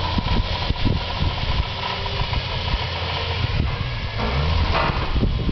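Jeep engine running at low revs with a steady low hum, with scattered knocks and clatter over it.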